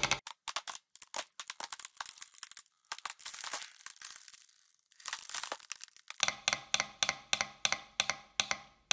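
Homemade compressed-air engine running down as its air supply gives out. Sharp irregular puffs and clicks come first, with a brief hiss about five seconds in. Then comes an even beat of exhaust puffs that slows from about three to two a second toward the end.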